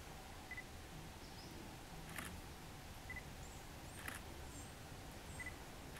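Faint outdoor wildlife ambience: a few short, high chirps and pips, and two brief clicks about two seconds apart.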